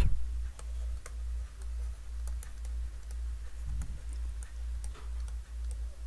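Faint, irregular light clicks and taps of a stylus on a tablet as words are handwritten, over a steady low electrical hum.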